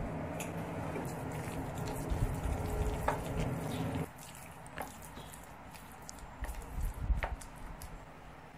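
Chopsticks stirring wet seasoned minced pork filling in a glass bowl, a wet liquid stirring over a steady background hum, with a few ticks against the glass; it cuts off suddenly about four seconds in. Then only a few light clicks and soft handling sounds.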